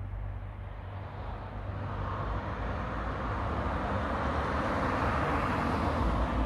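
A car driving along the road, its tyre and engine noise building steadily as it approaches and loudest near the end as it passes close by.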